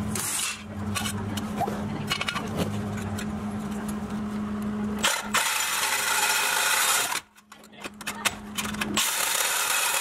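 Power tool cutting a steel exhaust pipe: a steady low hum with stretches of harsh hissing noise, the loudest starting about halfway through and again near the end.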